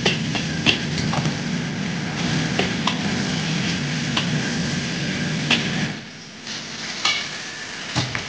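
Chicken pieces sizzling in a wok over the steady rush of a gas wok burner, with a metal ladle knocking and scraping against the wok about nine times. The burner's low rush and the sizzle fall away about six seconds in.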